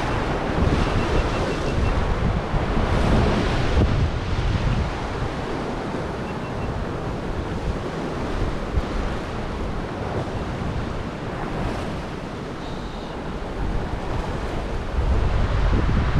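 Ocean surf washing and surging below, with wind buffeting the microphone in a low, rumbling rush that swells and eases.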